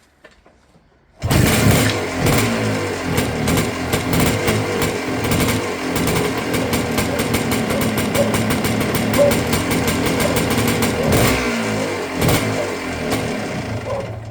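1980 Kawasaki KDX 250 single-cylinder two-stroke engine catching suddenly about a second in on its first start after a rebuild, then running with the revs rising and falling, and dropping away at the very end.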